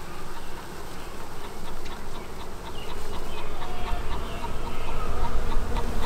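Honeybee swarm buzzing around an opened hive as the cover carrying the cluster is lifted; the buzzing gets louder about halfway through.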